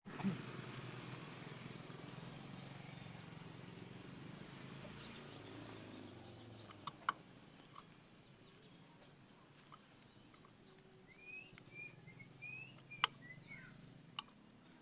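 Faint outdoor ambience of insects chirping in short repeated pulses over a low rumble that fades out during the first half. In the second half, a bird gives a few short, rising whistled notes, and there are several sharp clicks.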